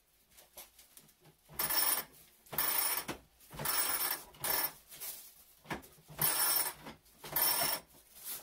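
Broom winder turning in strokes as broomcorn is bound onto the broom with wire from a spool: seven bursts of sound about a second apart.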